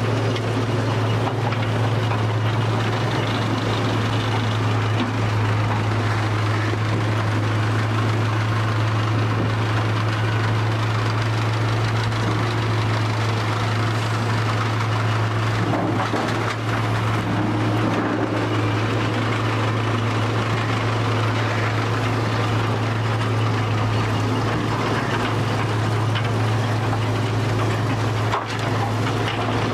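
Heavy machinery running steadily, a constant deep hum under a dense mechanical noise, without a pause.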